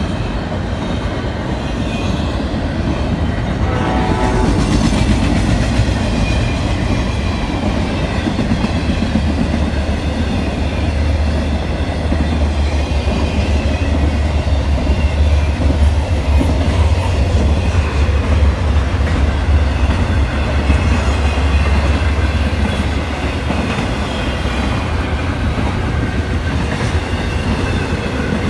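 CSX double-stack container freight train passing: the diesel locomotives go by, then the loaded well cars roll past with wheels clicking over the rail joints and a steady deep rumble that is strongest midway through.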